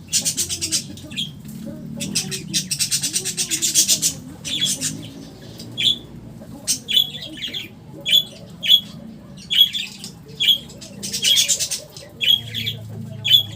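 Pet parrots squawking: a string of short, harsh calls about once or twice a second, broken by longer rasping chatter about two to four seconds in and again about eleven seconds in.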